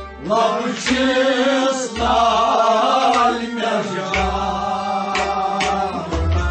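A male voice singing a Kashmiri Sufi song with musical accompaniment; from about two-thirds of the way through, a drum beats along in a regular rhythm.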